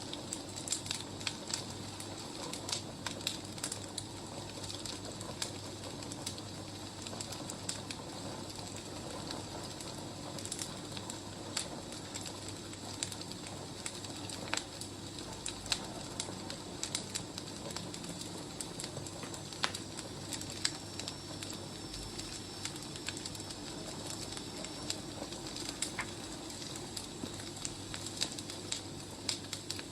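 Wood fire crackling, with irregular sharp pops and snaps over a steady low rush.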